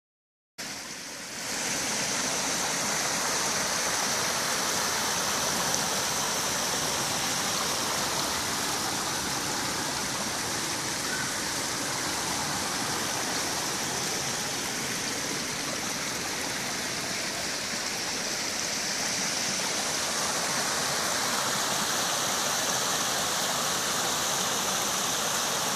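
Steady rushing of flowing stream water, starting about half a second in.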